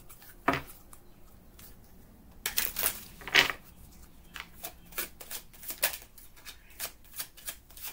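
A deck of reading cards being shuffled by hand: irregular soft slaps and riffles, louder about three seconds in, then a run of quick, light card taps.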